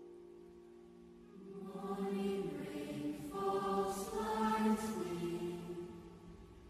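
A held piano chord fading away, then a mixed youth choir beginning to sing about a second and a half in, in parts, with the reverberation of a concert hall.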